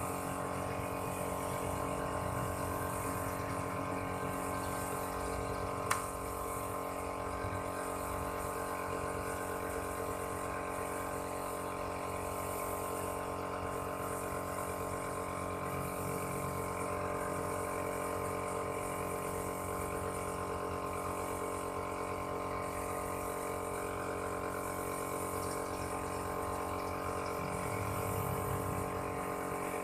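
Air compressor motor running steadily, with a steady hum, feeding a paint spray gun whose air hiss comes and goes in spells as the car's panel is sprayed. One sharp click about six seconds in.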